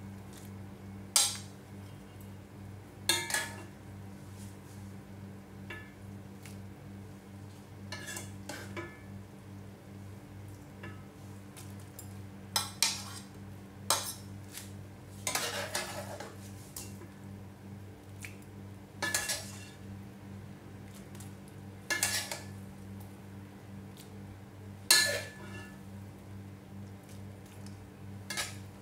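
A metal serving utensil clinking against a ceramic bowl as soup noodles with shrimp and vegetables are ladled in: about ten sharp, separate clinks at irregular intervals, over a steady low hum.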